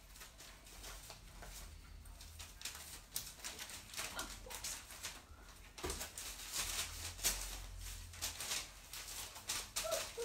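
A dog moving about close by: irregular clicks and rustles that grow busier in the second half, with a brief whine near the end.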